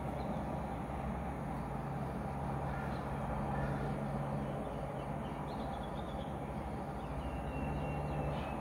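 Steady low hum of an engine or motor running at a distance, with a few faint high chirps and a thin high whistle near the end.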